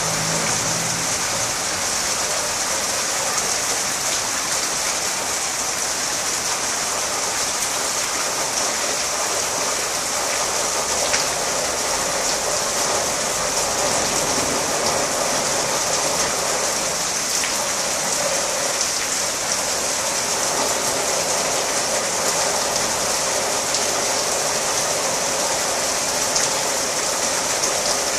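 Heavy rain falling steadily on garden foliage and the ground: a dense, even hiss with no let-up.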